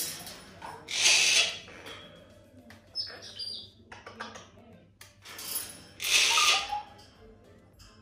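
African grey parrot giving two loud, harsh calls, about a second in and again about six seconds in, with a short high whistle around three seconds in.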